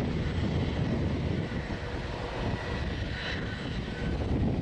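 Boeing 787-9's twin jet engines running with a steady rumble and a faint high whine as the airliner rolls along the runway for takeoff.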